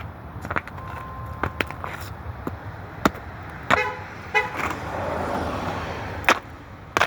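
Muddy football cleats knocking on the ground with each step, as sharp irregular clacks. A car horn toots twice near the middle, followed by a passing vehicle's noise swelling and fading.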